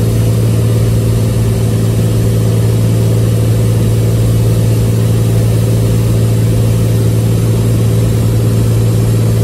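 Cessna 206H Stationair's Lycoming IO-540 flat-six engine and propeller droning steadily in flight, heard from inside the cockpit. The pitch holds constant throughout, with no change in power.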